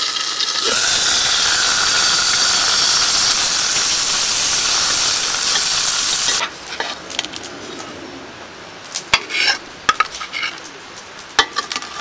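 Dumplings frying in hot oil in a pan, sizzling loudly and spattering. About six seconds in, the sizzle drops suddenly to a much quieter level, and a few sharp clicks of utensils against the pan follow.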